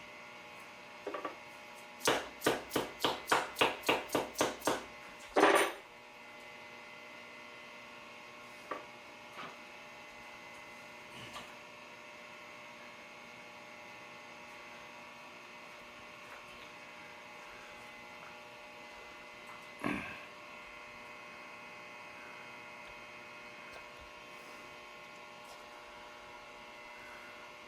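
A quick run of about ten hammer taps, roughly four a second, then one heavier blow, seating a workpiece down in a milling vise against a soft aluminum filler rod. A steady electrical hum runs underneath, with a few lighter knocks later.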